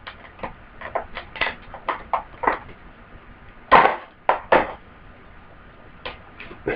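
Small objects and packaging being handled: a run of irregular light clicks and knocks, with three louder knocks a little past halfway through.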